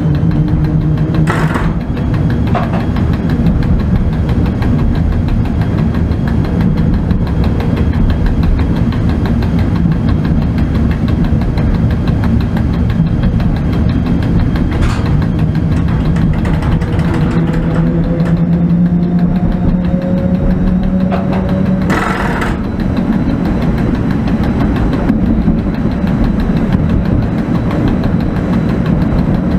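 ET22 electric locomotive heard from inside its cab while under way: a steady rumble of the running gear and traction motors, with a humming tone that slowly rises and then drops away about 22 seconds in. A few sharp knocks cut through, about one and a half seconds in, around 15 seconds and again at about 22 seconds.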